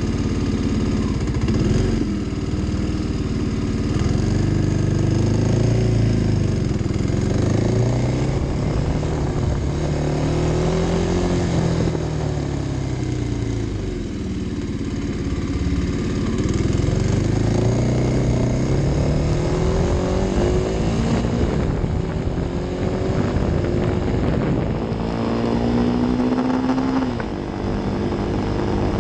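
Kawasaki D-Tracker's single-cylinder four-stroke engine under way. Its pitch climbs and falls several times as the rider opens the throttle, shifts and slows, and it drops sharply near the end. Wind and road noise rush over the mic.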